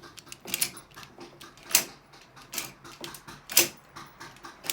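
Repaired uPVC door multipoint lock mechanism being worked by hand: a run of sharp metallic clicks and clacks as the follower and bolts are thrown and retracted, with three loudest clacks about a second apart.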